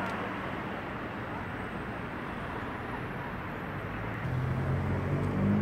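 Steady background noise with a low engine hum that grows louder from about four seconds in.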